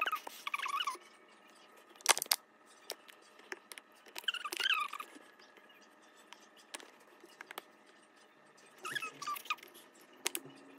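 Plastic honey squeeze bottle squeezed hard. Air forcing through its valve gives three short squeaks: at the start, about four seconds in and about nine seconds in. Scattered clicks and crackles of handled plastic come between them, with one sharp click about two seconds in.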